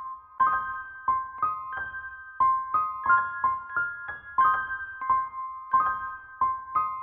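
Piano music: a high-register figure of short struck notes, about three a second, each ringing briefly, repeating in a steady pattern.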